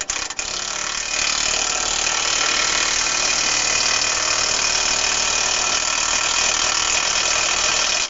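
Cordless impact wrench running steadily, louder from about a second in, driving a subframe bolt home and then cutting off suddenly. The bolt tightens all the way, so its threads are not stripped.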